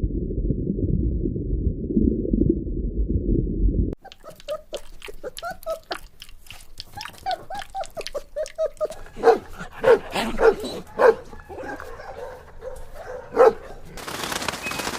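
A dog yipping and barking in short, sharp calls, loudest in a handful of barks in the latter part. Before it comes a few seconds of muffled low rumbling noise.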